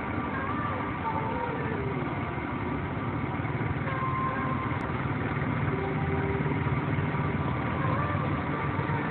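Small engines of several mini quad bikes running together as a steady drone, with a few faint rises and falls in pitch.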